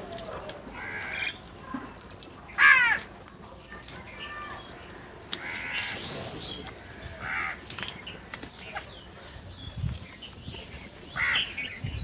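House crows cawing: a string of separate harsh caws, the loudest about three seconds in.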